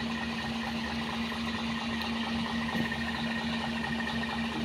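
Truck engine idling steadily, a constant even drone with a single low hum held throughout.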